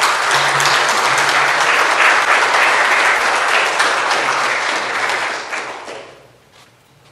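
Audience applauding, many hands clapping together, fading out about six seconds in.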